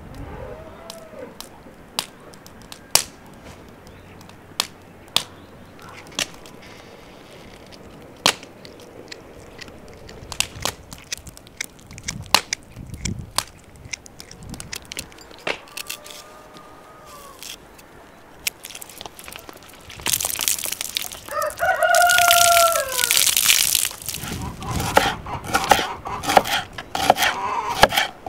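Scattered sharp clicks, then a rooster crows once, loudly, about three quarters of the way in. Near the end a kitchen knife chops green onion on a wooden cutting board in quick strokes.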